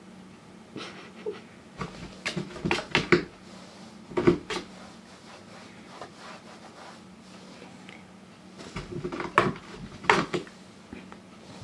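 A kitten's paws and claws scrabbling on a wooden floor and batting at a cardboard box: clusters of quick scratches and taps, loudest about three seconds in, a single sharp one a little after four seconds, and another run from about nine to ten seconds in. A faint steady hum runs underneath.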